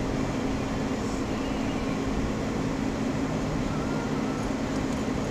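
Vehicle driving slowly over sand, heard from inside the cabin: a steady engine drone with tyre and road noise.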